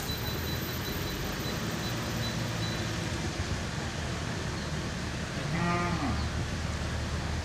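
Low, steady rumble of a tank-wagon freight train rolling away along the track, with one short cow moo about five and a half seconds in that drops in pitch at its end.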